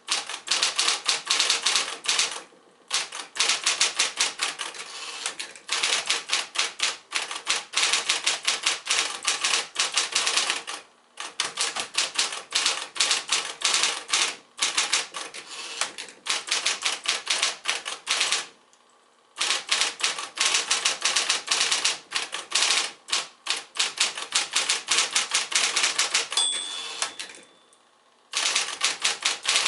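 Smith-Corona Electra 120 electric typewriter typing in fast runs of sharp keystrokes, broken by short pauses, over a steady motor hum. A brief ringing tone sounds near the end, just before a pause.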